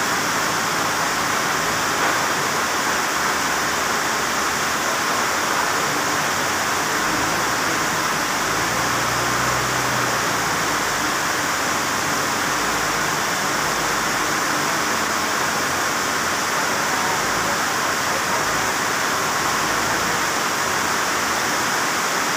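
Heavy rain pouring steadily, drumming on a sheet-metal shed roof.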